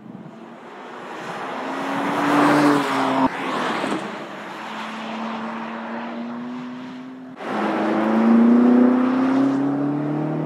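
BMW M2 Competition's three-litre twin-turbo straight-six exhaust as the car drives past on a race track, the engine note swelling as it passes and rising in pitch under acceleration. The sound changes abruptly about three seconds in and again about seven seconds in, where a louder stretch of acceleration begins.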